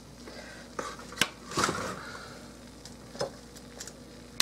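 Metal tongs clicking and scraping against a metal baking sheet and a plate as pieces of oven-fried chicken are lifted off the pan: a handful of scattered clicks, the sharpest about a second in and again at the very end, over a faint steady hiss.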